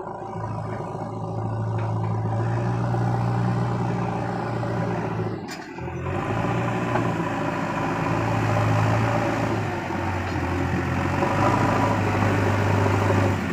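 A heavy diesel engine running steadily under varying load, with a brief break and a click about five and a half seconds in.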